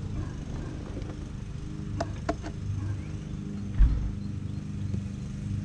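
A cane table base being handled: a couple of light clicks, then a dull thump a little before four seconds in as it is pushed and tipped, over a steady low hum.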